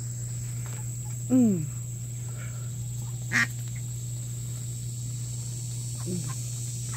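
Female mallard ducks feeding on scattered seed. A hen gives one loud quack, falling in pitch, about a second in, then a short sharp call about three seconds in and a faint one near the end, over a steady low hum.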